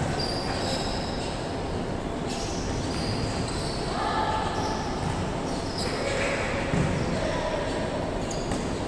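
Volleyball rally in an echoing gym: the ball struck a couple of times, at the start and about seven seconds in, over shoe squeaks on the hardwood court and players' scattered voices.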